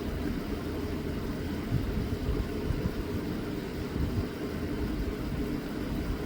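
Steady low rumble of background noise, with no distinct clicks or strikes standing out.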